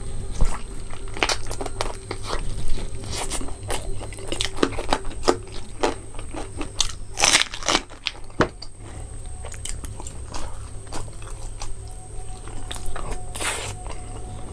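Close-miked eating: repeated crunching bites and wet chewing, with clusters of sharp crackles about seven seconds in and again near the end, over a steady low hum.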